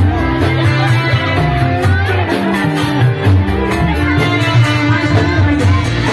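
Live reog troupe music played loud, with sustained melody lines over a steady beat.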